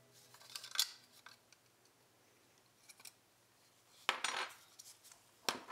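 Small plastic and metal parts of a partly disassembled Canon EF 50mm f/1.4 lens clicking and rubbing as they are handled: a few light clicks, then a brief louder scrape about four seconds in.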